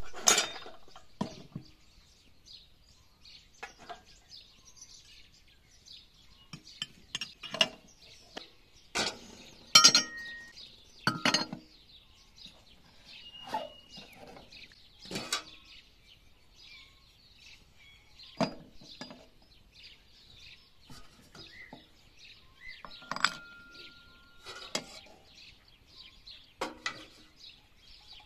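Metal parts of an electric cream separator clinking and knocking as they are handled and fitted together: irregular clinks, a few of them ringing briefly.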